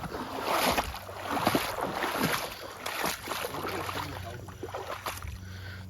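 Shallow creek water sloshing and splashing unevenly, as someone wades and handles things in the water.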